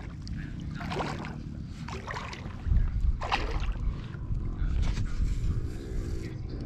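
Wind rumbling on the microphone, with water sloshing against an inflatable float tube about three times.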